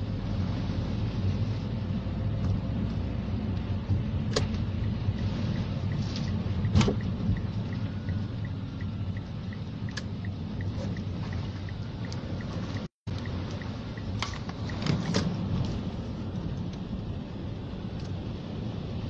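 Storm wind buffeting the microphone as a steady low rumble, with a few sharp clicks.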